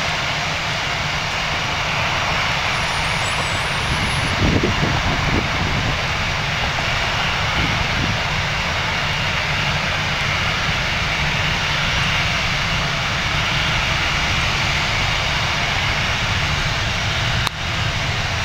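Boeing 777-200's GE90 jet engines running with steady, loud jet noise, with a brief low rumble about four and a half seconds in and a short dip near the end.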